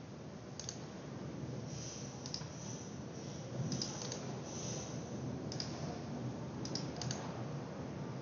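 Scattered clicks of a computer mouse and keyboard, several coming in quick pairs, over a steady low background hiss.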